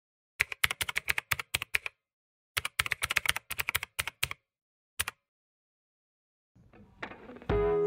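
Keyboard typing sound effect: two quick runs of key clicks, about a dozen each, then a single click about five seconds in. Music fades in near the end.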